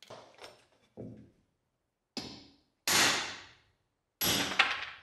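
Restored 1884 Singer sewing machine being handled and worked by hand: five short separate clunks and rattles, the last two louder and longer.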